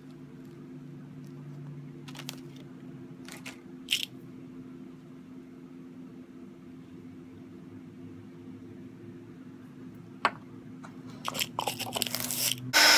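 Fingers rubbing and dabbing powder onto a paper sketchbook page: faint scratching with a few small clicks and crackles over a low steady hum. Right at the end a hot-air blower switches on loudly.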